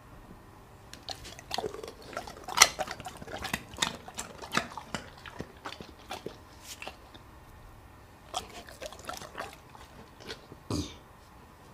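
Wet clicks and smacks of a Labrador retriever licking its lips at a plate of food, with one louder sniff near the end as it lowers its nose to the food.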